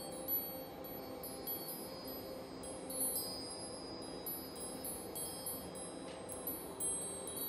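Wind chimes ringing gently, many clear high tones struck at irregular moments and overlapping as they fade.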